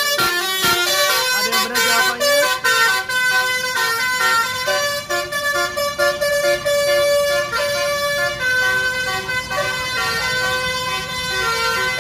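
Basuri telolet horn, a multi-tone musical vehicle horn, playing a tune of held notes, several tones sounding together and stepping in pitch every fraction of a second.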